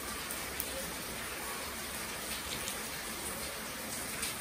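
Steady background hiss with a few faint clicks, and a light rustle of a clear plastic bag of parts near the end.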